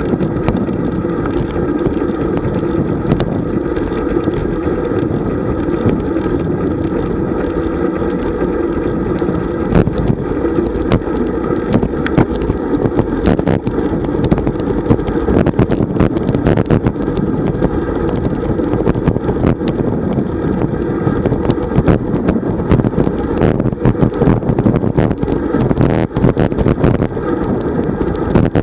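Wind rushing over a bike-mounted camera's microphone, with road rumble from a road bike rolling at speed, picking up from about 28 to 42 km/h. From about ten seconds in come frequent sharp knocks and rattles as the bike jolts over the road surface.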